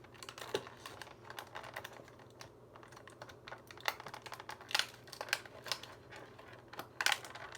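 Irregular small clicks and taps of hands handling a plastic Rubik's cube, with a few sharper clicks a little past halfway and near the end.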